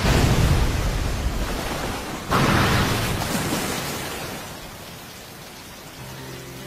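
Anime battle sound effects: a heavy rushing blast that fades, then a second sudden blast about two seconds in that dies away over the next two seconds. Soft music comes in near the end.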